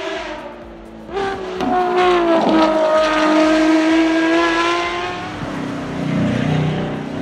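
A Ferrari FXX K track car's engine revving hard as it accelerates past, its pitch leaping up about a second in and then sliding slowly down as it goes by. Near the end a deeper, rougher engine note follows as a Bugatti Chiron, with its 8-litre quad-turbo W16, passes.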